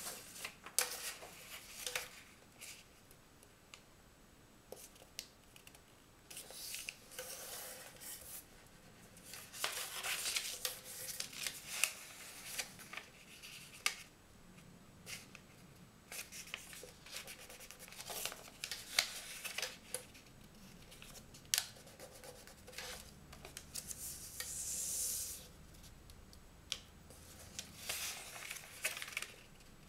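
A square sheet of origami paper folded by hand: intermittent rustling and crinkling as it is lifted and bent, with short sharp clicks and scrapes as the fingers press creases flat and slide the paper on the table.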